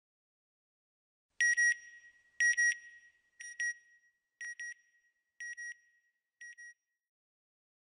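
Electronic beep sound effect: six pairs of short, high beeps, one pair about every second, growing fainter towards the end.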